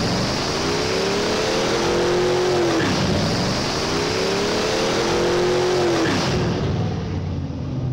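Car engine revving hard twice over a loud rush of noise, each rev climbing steadily in pitch and then dropping off sharply; the sound fades near the end.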